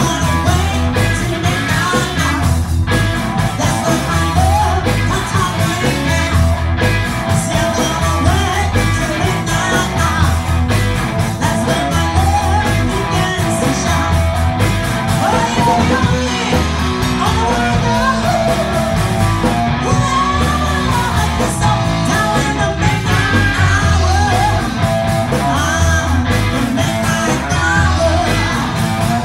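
Live rock band: a woman singing into a microphone over electric guitar, electric bass and drums with a steady beat.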